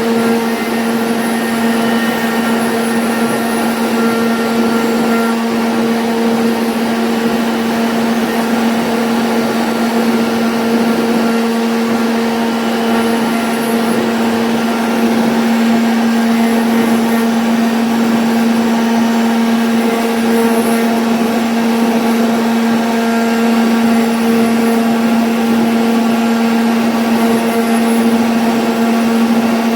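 CNC router spindle running steadily while routing a 2D jali pattern in MDF: a constant whine over an even cutting noise, getting slightly louder about halfway through.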